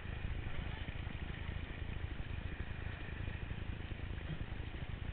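Steady, fluttering low rumble of wind and water buffeting a helmet camera in its waterproof housing on a towed inner tube, with splashing hiss from the water.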